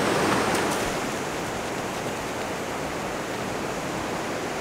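Ocean surf washing onto the beach, a steady rush of breaking waves that drops slightly in level about a second in.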